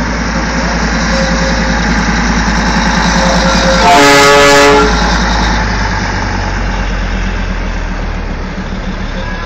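Darjeeling Himalayan Railway toy train running with a steady rhythmic rumble. About four seconds in, its locomotive sounds a single loud whistle blast lasting about a second.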